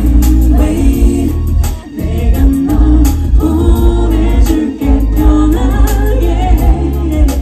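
Live pop performance: a female vocal group singing together over a band with heavy bass and drums, played loud through a concert sound system. The band thins out briefly twice.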